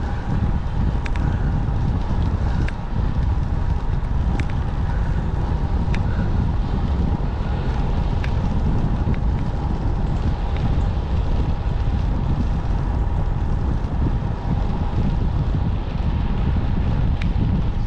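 Wind buffeting a GoPro's microphone on a road bike in motion: a steady low rumble with a constant hum under it and a few scattered sharp ticks.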